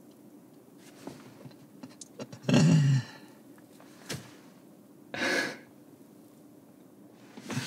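Low steady car-cabin hum with a few small ticks. About two and a half seconds in a person gives a deep voiced sigh that falls in pitch, about four seconds in there is a single sharp click, and about five seconds in comes a short breathy exhale.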